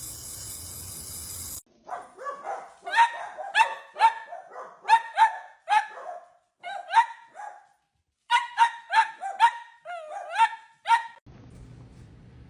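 A small dog barking over and over in short, high-pitched yaps, about two or three a second, with brief pauses.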